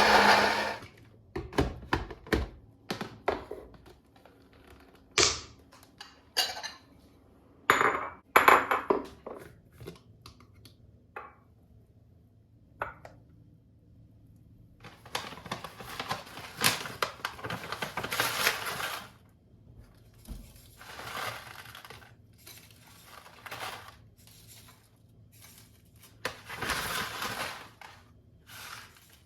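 Kitchen work: dishes, pans and utensils handled, with sharp clinks and knocks and several longer noisy stretches of a few seconds each.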